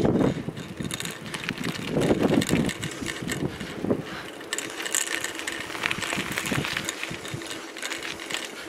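Bicycle rattling over a rough, cracked tarmac road, with wind gusting on the microphone. The gusts are strongest in the first half, and the clicking and rattling thicken in the second half.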